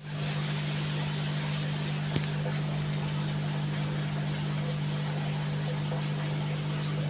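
Steady electrical hum of aquarium pumps and filtration equipment over a constant hiss, with a single faint click about two seconds in.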